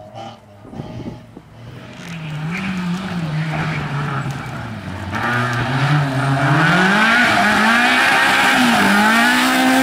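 Renault Clio rally car's engine revving hard through a tight chicane, its pitch rising and falling several times as the driver works the throttle and gears. It grows much louder about halfway through as the car comes close.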